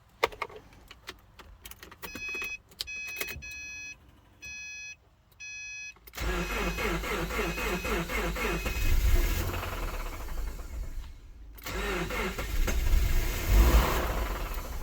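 Subaru car being started: a few clicks and a dashboard warning chime beeping several times, then about six seconds in the engine cranks, catches and runs, swelling in level twice.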